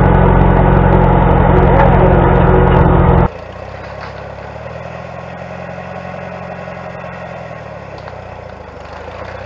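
Tractor engine running steadily, loud and close for about three seconds, then suddenly much quieter and more distant as the tractor drives along.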